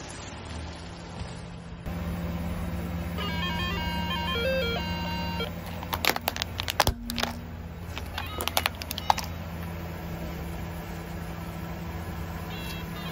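Car engine idling with a steady hum while a plastic toy guitar's electronic sound chip plays a short beeping tune. Then comes a run of sharp plastic cracks and snaps as the car tyre rolls onto the toy guitar and crushes it. Near the end the toy beeps out its tune again.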